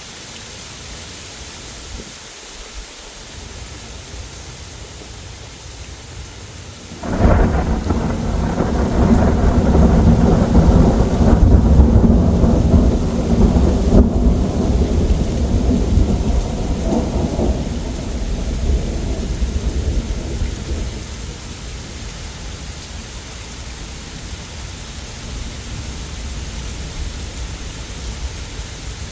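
Steady rain falling, then about a quarter of the way in a sudden close clap of thunder that breaks into a long, loud rolling rumble lasting around ten seconds before fading back under the rain.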